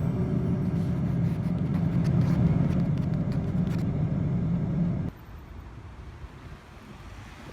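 Low, steady rumble of city road traffic. It cuts off abruptly about five seconds in, leaving fainter outdoor background noise.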